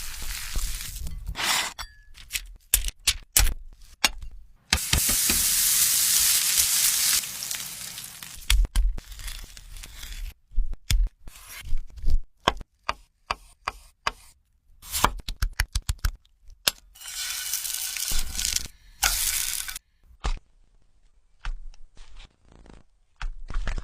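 Kitchen sounds of a chicken burger being prepared: a run of sharp clicks, knocks and clinks of utensils and food being handled, with two stretches of sizzling, one about five seconds in and one near the end.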